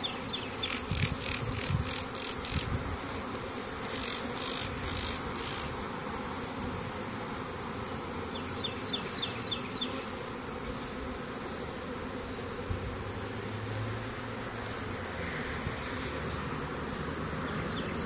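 A honey bee swarm buzzing steadily all around. Over it, a hand spray bottle gives quick hissing squirts in two runs in the first six seconds, about eight and then four.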